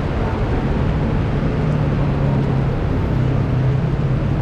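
Heavy rain falling steadily, with a low steady hum underneath.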